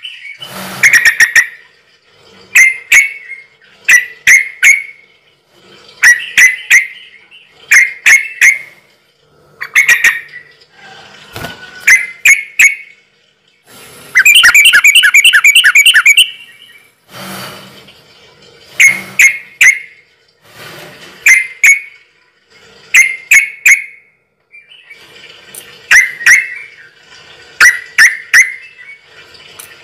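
Bird calls: short bursts of sharp chirps repeating about every two seconds, with a longer rapid trill near the middle.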